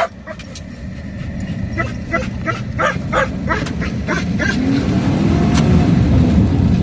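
Engine and road noise inside a moving car, getting louder about two-thirds of the way in as it picks up speed, with a string of short yips from a dog in the car a couple of seconds in.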